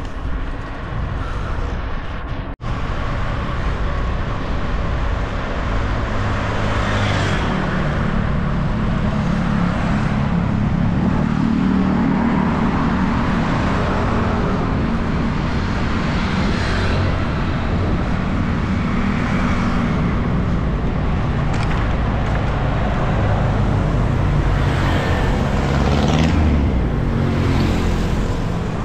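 Road traffic heard from a moving bicycle: a steady rumble of road and wind noise with motor vehicles swelling past several times.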